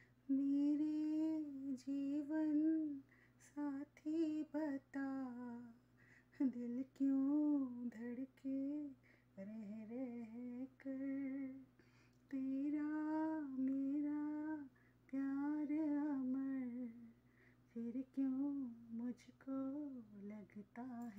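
A woman humming a slow, sad melody in short phrases with brief pauses between them, unaccompanied.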